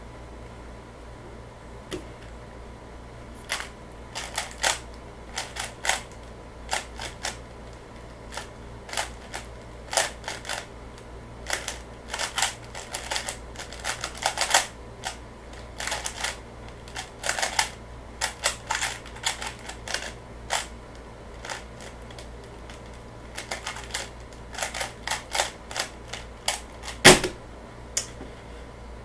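3x3 Rubik's cube being speed-solved by hand: rapid plastic clicking of the layers turning, in quick irregular runs, for about 24 seconds. It ends a few seconds before the close with one loud knock as the solved cube is put down and the timer stopped.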